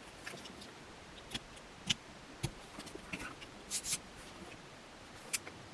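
A scatter of small clicks and light scrapes as a mechanical pencil is handled and a digital caliper is slid and closed on it to measure its length with the lead sleeve out. The clicks are irregular, about seven or eight of them, the loudest a little past halfway.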